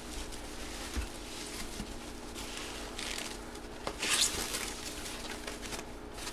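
Hands rustling and scratching at packaging while unboxing a helmet, with a light knock about a second in and a louder rustle about four seconds in.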